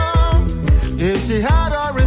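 Upbeat background music with a steady drum beat of about two thumps a second and a melody that swoops upward near the middle.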